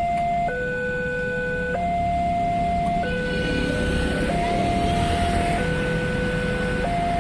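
Indonesian railway level-crossing warning alarm from the pole-mounted loudspeaker: an electronic two-tone signal alternating a lower and a higher tone, each held about a second and a quarter, warning that a train is coming. A low road-traffic rumble runs beneath it.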